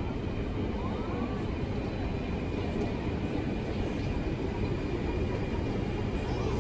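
Alstom Metropolis C830 metro train running into an underground station behind platform screen doors, a steady rumble growing slightly louder toward the end.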